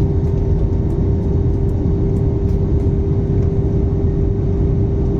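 Steady, loud cabin noise of an airliner in flight: a constant low rumble of engines and airflow with a steady droning hum above it.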